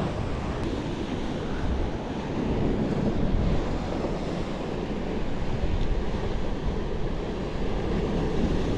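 Steady wash of ocean surf on the shore, with wind noise on the microphone.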